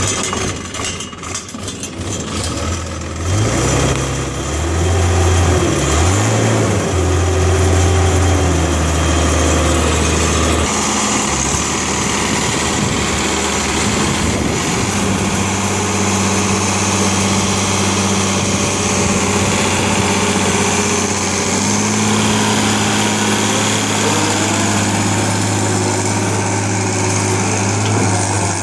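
International 3600A backhoe's engine cranking on the starter, catching about three seconds in with a couple of short revs, then settling into a steady idle. The idle speed rises slightly about three quarters of the way through.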